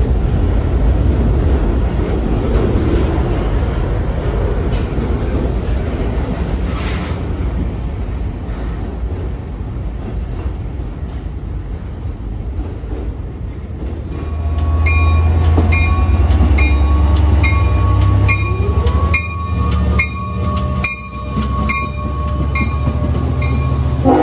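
Freight cars rolling past on the rails, a steady rumble of wheels. About two-thirds of the way through, a diesel train's deep rumble takes over, with a grade-crossing bell ringing about twice a second over it.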